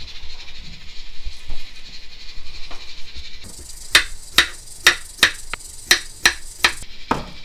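Kitchen knife chopping a Korean pear into chunks on a wooden cutting board: about ten sharp knocks of the blade on the board, roughly three a second, through the second half.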